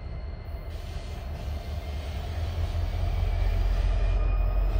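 Two EMD diesel locomotives, a Union Pacific SD70ACE and SD70AH, running light with no cars behind them. Their engines make a deep rumble that grows steadily louder as they approach.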